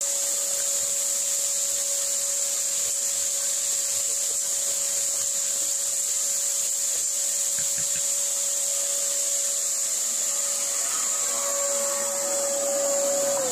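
Shop vac running steadily with a constant whine, pulling air down through a colander of freshly roasted coffee beans to cool them, while the beans are stirred with a wooden spoon. Right at the end the whine starts to drop as the vacuum is switched off and winds down.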